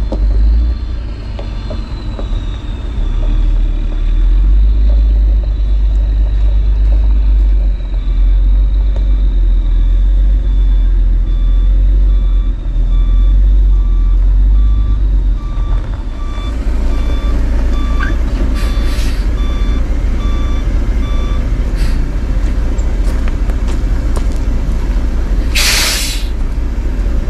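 Diesel dump truck loaded with gravel, its engine running as it reverses, with the back-up alarm beeping steadily. About a second before the end, a short loud hiss of air from the truck's air brakes.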